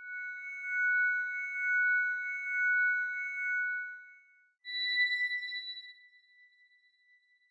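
Two synthesized shimmer sound effects of the kind used for glints and flashes of light. First a pair of steady high tones swells and fades over about four seconds, then a sudden bright chime-like ring starts and dies away slowly.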